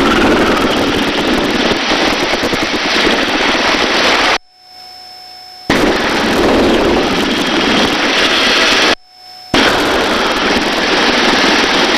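Helicopter in a hover: loud, rapid rotor-blade chop over turbine and downwash noise. The sound cuts out suddenly twice, for about a second and then half a second, leaving only a faint electronic hum.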